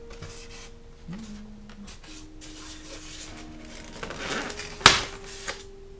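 Hands rummaging in a styrofoam packing box, with rustling of plastic wrapping and foam. A sharp knock about five seconds in is the loudest sound, and a lighter one follows.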